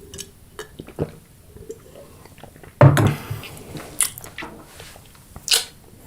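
Close-up chewing and biting of crunchy fried food: irregular crisp crunches, the loudest bite about three seconds in, with smaller ones near four and five and a half seconds.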